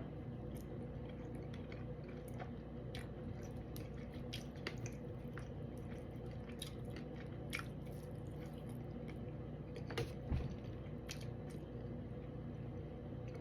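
A person chewing and biting into fish close to the microphone, with many small wet clicks and crackles. There are two louder knocks about ten seconds in.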